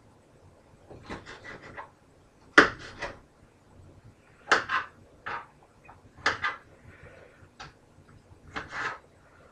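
Kitchen knife chopping red peppers on a plate: irregular runs of a few quick chops with short pauses between, the sharpest stroke about two and a half seconds in.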